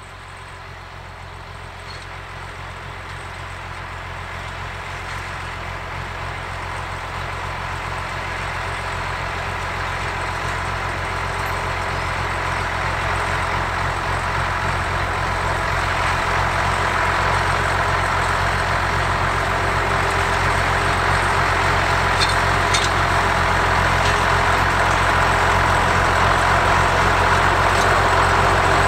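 Ford 9700 tractor's 6.6-litre six-cylinder diesel engine running steadily as the tractor works across the field, growing steadily louder as it approaches.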